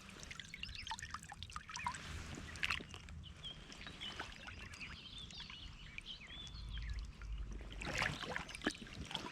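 Creek water trickling and sloshing, with many small splashes. Near the end it rises to a louder burst of splashing as a large trout is handled in the shallow water for release.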